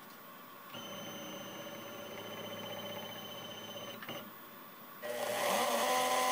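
Shapeoko CNC's stepper motors whine steadily for about three seconds as the machine traverses to the touch-off point. About five seconds in, the router spindle starts up and runs, much louder.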